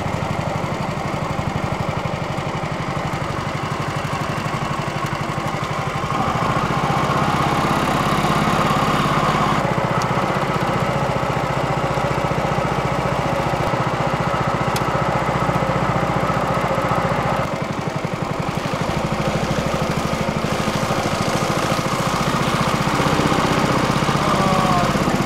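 Small Champion gasoline engine driving a boat's mud motor, running steadily under way. Its sound steps up louder about six seconds in and dips briefly about two-thirds of the way through as the throttle changes.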